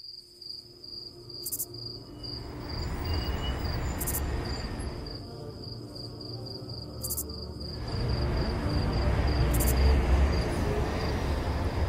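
Crickets chirping in a steady, even pulse over the slow opening of a music track, whose deep low notes swell in after about two seconds and grow louder towards the end.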